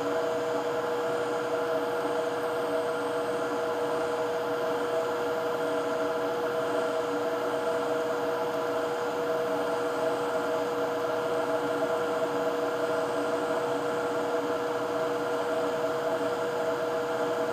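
Hot air rework station blowing steadily at an airflow setting of 40, a constant hiss with a steady whining hum, while its nozzle heats a NAND chip to reflow the solder balls under it.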